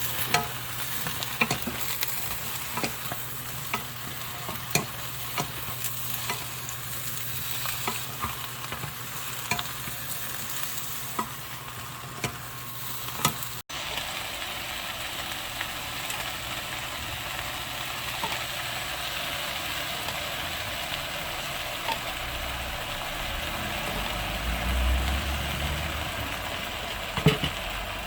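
Eggplant sizzling as it is stir-fried in a pan, a utensil tapping and scraping against the pan as it is stirred. About halfway there is a cut, after which the sizzling goes on more steadily with only occasional taps and a couple of sharp knocks near the end.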